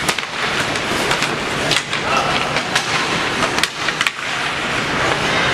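Ice hockey game play heard from the stands: skates scraping across the ice, with many sharp clacks of sticks and puck and faint chatter from spectators.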